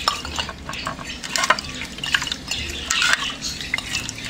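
Hands washing a glazed plate in salt water: irregular sloshing and rubbing against the plate, with scattered short knocks.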